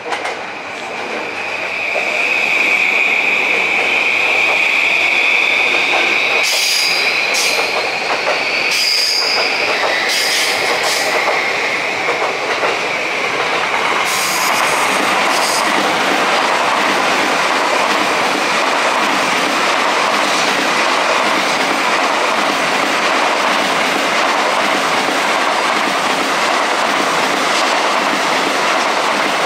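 A train running through the station. For the first ten seconds there is a steady high-pitched tone and a rising whine, with a few sharp clicks. After that comes the steady loud rush of the train passing.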